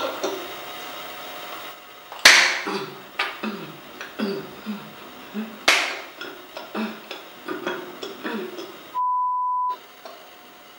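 Two sharp hand smacks, about three and a half seconds apart, among short wordless voice sounds, then near the end a steady high bleep tone lasting under a second with all other sound cut out, as edited in.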